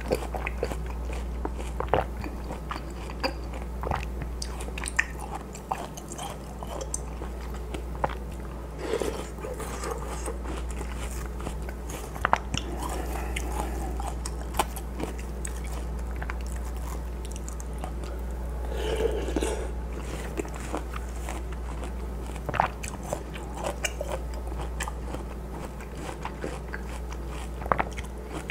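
Close-up biting and chewing of juicy watermelon pieces from watermelon hwachae: wet crunches and mouth clicks scattered irregularly. A steady low hum runs underneath.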